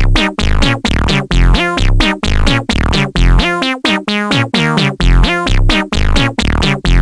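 Electronic music: synthesizer notes over a deep bass, cut into short rhythmic stabs with a steady beat.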